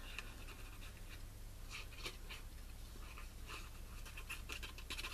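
Soft, irregular scratching and rubbing of a liquid glue pen's tip worked over a square of cardstock, with light paper handling, over a faint low hum.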